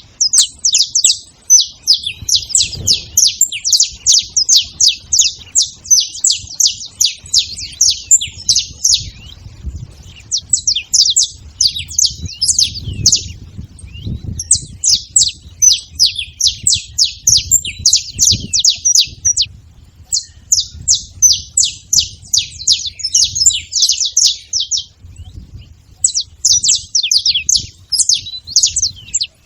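Several saffron finches calling together: fast streams of sharp, high chips, broken by a few short pauses.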